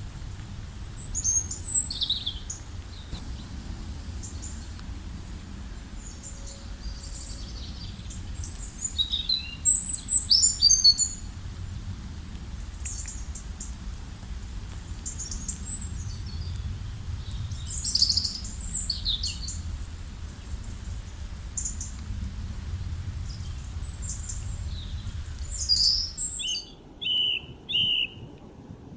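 Several small songbirds chirping and trilling in short, high calls, over a steady low rumble. About 26 seconds in, the rumble drops away abruptly, and a few lower chirps follow against a quieter background.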